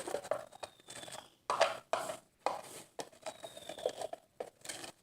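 A utensil stirring a thick mixture of lotion, shampoo and liquid soap in a cup: repeated irregular stirring strokes, roughly two a second, as the mixture is worked until evenly blended.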